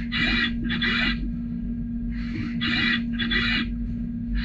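Brother Speedio U500Xd2-5AX machining center chamfering aluminium with a Φ8 chamfering tool at 3,000 rpm. Five short, high-pitched cutting bursts of about half a second each sound over a steady machine hum.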